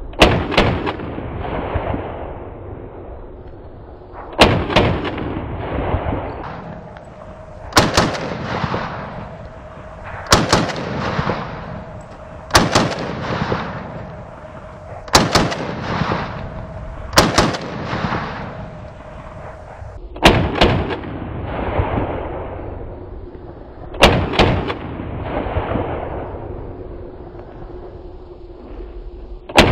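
VULKAN-M AK-pattern bullpup rifle fired in slow, single aimed shots: about nine rifle shots two to four seconds apart, each followed by a rolling echo.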